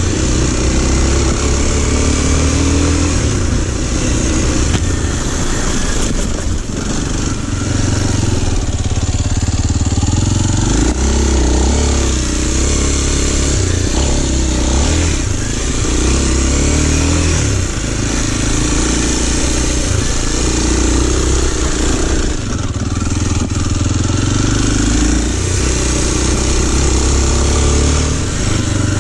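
Kawasaki KLX230's single-cylinder four-stroke engine running while the bike is ridden on a dirt track, its revs rising and falling with the throttle, over a steady rush of wind noise on the microphone.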